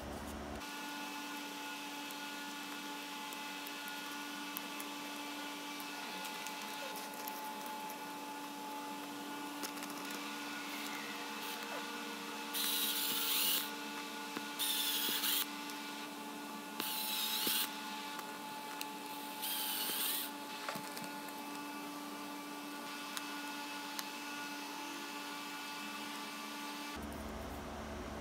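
Small power drill running in four short bursts of about a second each, boring small holes through a thin wooden strip, over a steady background hum.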